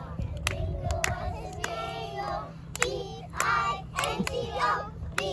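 A group of young children singing together, with hand claps keeping a steady beat a little under twice a second.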